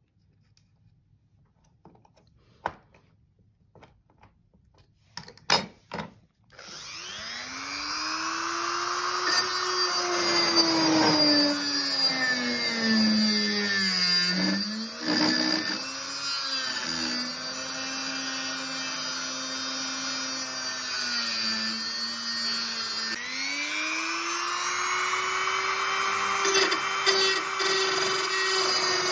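A few light handling clicks, then a handheld rotary tool starts about six seconds in and grinds a strip of old knife-blade steel. Its motor whine sags in pitch when the bit is pressed hard into the metal and rises again as the load eases.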